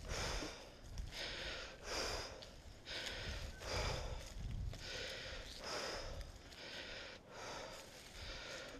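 Heavy, rhythmic breathing of a person exerting themselves, about one breath a second, over a low rumble of movement.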